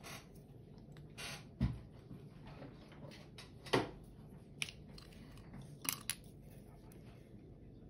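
A few light, scattered clicks and knocks of small nail-art tools being handled while a brush is swapped for another, the sharpest about three and a half seconds in.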